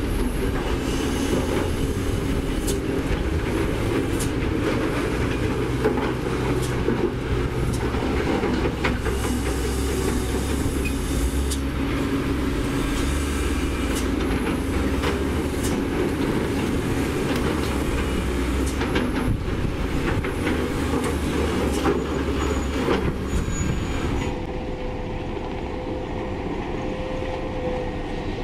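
Diesel engines of a Doosan DX300LCA excavator and dump trucks running, with repeated knocks and clatter of rock as the bucket digs into a stone pile. About 24 seconds in, this gives way to a quieter, smoother hum with a steady tone.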